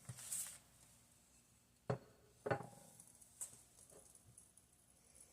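A few light kitchen handling clicks and knocks, sparse and separate, one about halfway through ringing briefly like a utensil or dish tapped.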